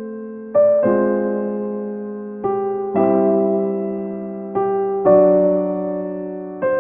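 Slow background piano music: soft chords struck every second or two and left to ring and fade.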